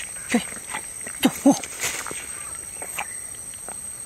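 Hand digging and scraping in loose, damp soil at a burrow, with a few short low-pitched calls, two of them close together a little over a second in.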